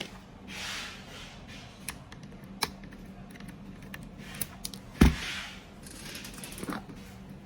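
Small metal clicks, ticks and scrapes from a screwdriver and tiny screws being worked loose and handled on a fusion splicer's frame, with one heavier knock about five seconds in.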